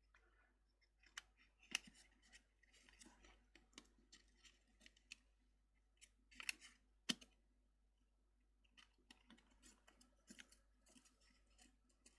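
Faint, scattered clicks and scrapes of small plastic parts being handled as the opened case of a heads-up display is taken apart, with a few sharper clicks.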